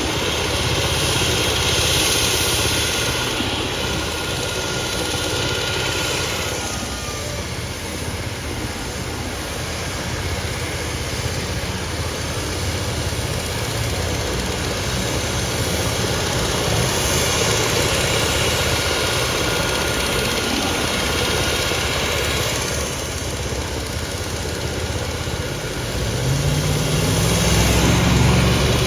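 Engines running steadily, with a faint high whine over a low rumble; a heavier low engine sound swells near the end.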